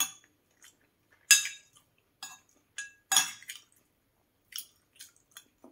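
A metal spoon and fork clinking and scraping against a ceramic bowl while eating. There are three sharp ringing clinks, at the start, about a second in and about three seconds in, with lighter taps between and near the end.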